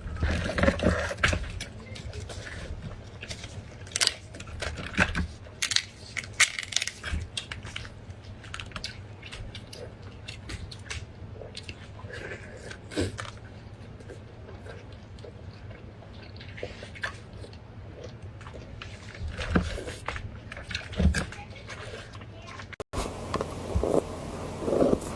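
Close-up chewing and biting of meat: irregular wet crunches and mouth clicks. Near the end the sound cuts suddenly to a steadier, noisier background.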